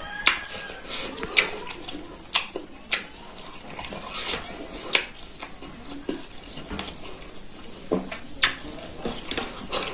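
Close-up mouth sounds of eating smoked pork and rice by hand: wet chewing with sharp lip smacks, irregular, about once a second, over a steady hiss.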